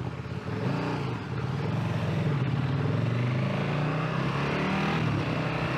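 Motorcycle engine pulling away, getting louder about half a second in, its revs climbing and dropping back in turn as it works up through the gears.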